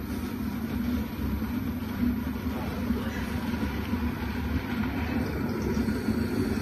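Longbank quiet cooking blender running through a cooking program: a steady low hum with a slightly uneven rumble.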